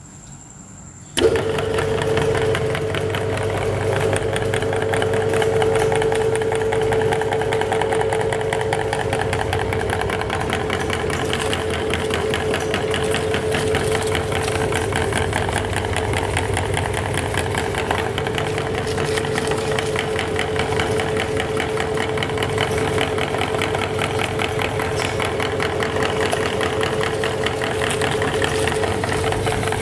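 Motor-driven meat grinder switched on about a second in, then running steadily: a steady mechanical hum with a fast, even ticking from the turning auger and belt pulley.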